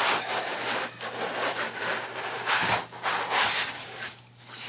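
Cardboard and packing material scraping and rustling in repeated strokes as the desktop computer is worked out of its shipping box, dying down near the end.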